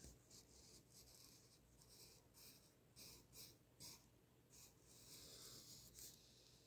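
Graphite pencil scratching faintly across paper in a run of short, irregular strokes, with one longer stroke about five seconds in.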